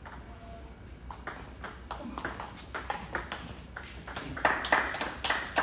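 Table tennis rally: the plastic ball clicking off the paddles and bouncing on the table in quick alternation, about two or three clicks a second, louder in the last second or so.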